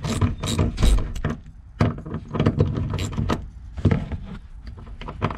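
Ratchet wrench with a 14 mm socket clicking in a quick run through about the first second as the seat-belt-mount bolt is turned out. After that come scattered clinks and knocks of the metal tools being set down on the carpeted floor.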